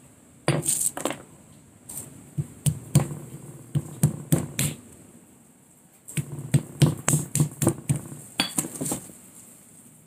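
Roasted cashew nuts being cracked by pounding with a hand-held pounder on a hard jar top: sharp knocks in three runs of quick strikes with short pauses between.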